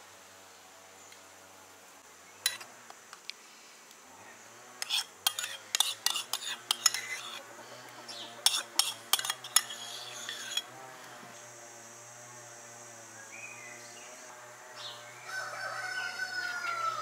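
A metal spoon clicks and taps against a sauce bowl and a metal pizza pan in a quick run of sharp knocks, as tomato sauce is spooned onto dough. Near the end a rooster crows once, its call falling in pitch.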